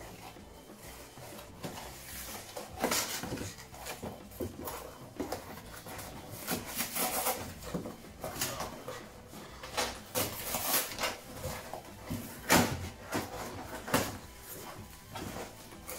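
Cardboard shipping box being pulled apart and rummaged by hand, with irregular rustling and scraping in short bursts.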